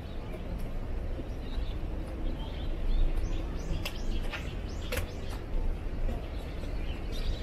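Birds chirping in short, high, downward-sweeping calls, over a steady low rumble, with a couple of sharp clicks a little past the middle.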